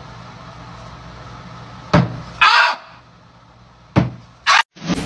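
Two sharp taps of a long stick against a wall, about two seconds apart, each followed at once by a short harsh cry; the first cry is the longer and louder.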